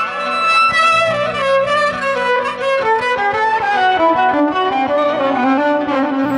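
Violin playing an instrumental introduction in maqam Dasht, a wavering melody that slowly falls in pitch over a held low accompaniment.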